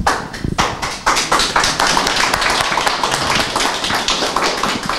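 Small audience applauding, the clapping filling in about a second in, with a few knocks of microphone handling at the start as the microphone is passed.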